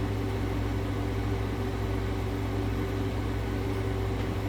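Air conditioner running with a steady low hum and a faint steady whine.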